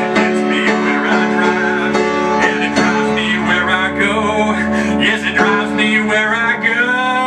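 Upright piano played live in an instrumental passage between sung lines, notes and chords struck over sustained bass tones.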